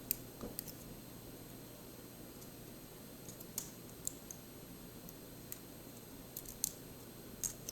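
Small metal clicks and ticks at irregular intervals as a thin metal shim is worked into a DOM IX10 dimple lock cylinder.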